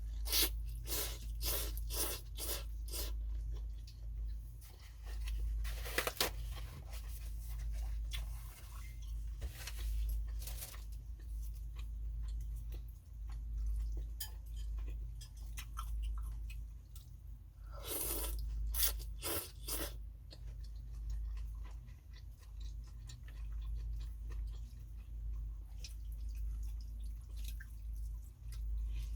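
Close-up eating sounds of a person eating phở: chewing, with short sharp clicks and slurp-like noises that come in bunches at the start and again about two-thirds of the way through. A steady low hum runs underneath.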